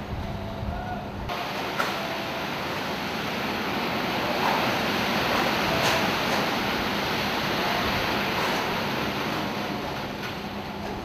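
Rushing noise that swells from about a second in and fades toward the end, over a steady low hum.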